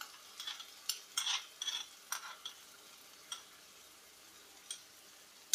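A spoon and spatula scraping a thick tomato-spice masala out of a bowl into a nonstick frying pan of fried onions: a quick run of light scrapes and clicks in the first couple of seconds, then a few single taps, over a faint sizzle from the pan.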